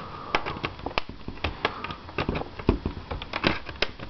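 Irregular sharp plastic clicks and taps as a screwdriver pries around the edges of a Toshiba Tecra 9100 laptop's plastic LCD bezel, popping it loose.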